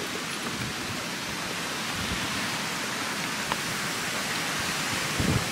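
Strong wind blowing over the microphone: a steady hiss with a gusting low rumble that swells near the end. A single faint click comes about three and a half seconds in.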